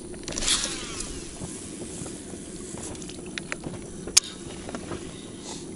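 A baitcasting reel casting a big lure: a short whirr from the spool as line pays out about half a second in, then a single sharp click about four seconds in, over a steady low hum.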